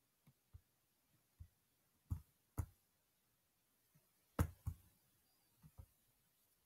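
A few faint computer mouse clicks, scattered and sharp. The loudest come as two pairs, about two seconds in and about four and a half seconds in.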